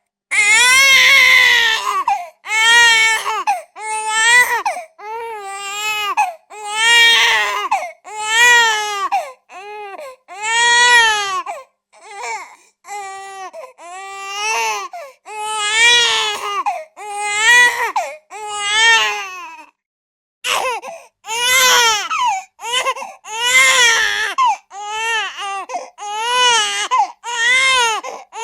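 Infant crying: a run of loud, high-pitched wails, each rising and falling in pitch, with short catches of breath between them and one brief pause about two-thirds of the way through.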